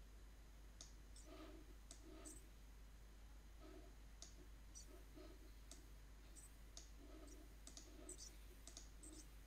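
Near silence, with faint, irregular clicks from a computer mouse and keyboard.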